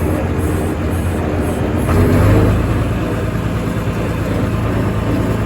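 A heavy farm machine's engine running steadily while cutting briars; its low note gets louder about two seconds in.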